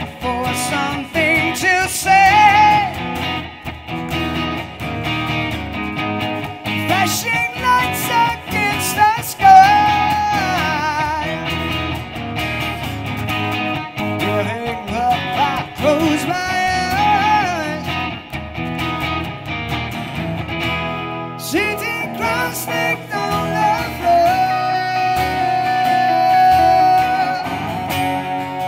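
Live acoustic-electric guitar duo: a strummed acoustic guitar under bending, wavering electric guitar lead lines, with a male voice singing. A long note is held near the end.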